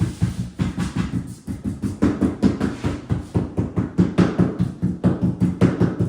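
A tile being tapped rapidly and evenly, about five or six knocks a second, to bed it in.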